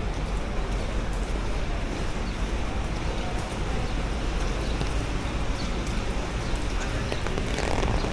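Outdoor street ambience heard while walking in the rain: a steady wash of noise with a low rumble, faint voices and scattered light clicks.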